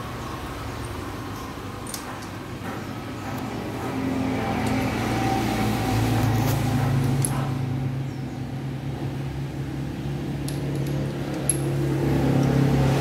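A motor or engine running with a steady low hum that swells louder a few seconds in and again near the end, with a few light clicks of metal parts being handled.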